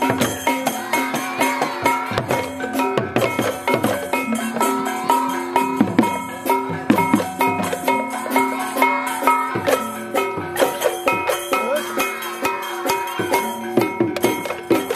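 Balinese gamelan beleganjur playing: a fast, dense clatter of cymbals over drums and ringing held gong tones.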